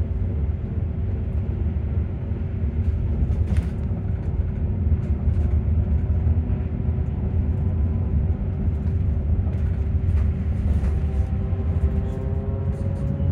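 Electric bus traction motor whining over a steady low road rumble from the cabin, the whine drifting slowly down in pitch. About ten seconds in, several higher whine tones start rising as the bus gathers speed.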